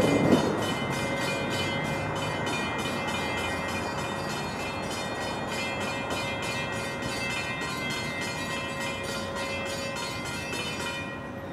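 New Jersey Transit commuter train approaching, with a bell ringing rapidly, about four strokes a second, over the train's rumble. The ringing stops near the end. A short louder noise comes at the very start.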